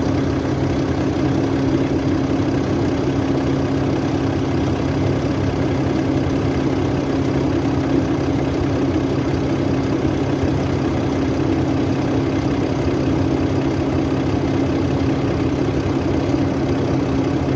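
New Holland T7.210 tractor's six-cylinder diesel engine running at a steady speed, an even hum with no change in pitch or level.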